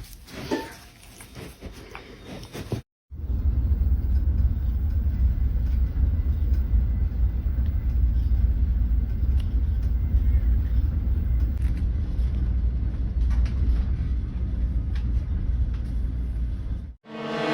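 A loud, steady low rumble that starts abruptly about three seconds in and stops abruptly near the end. Before it there are a few seconds of quieter sound with a short rising cry.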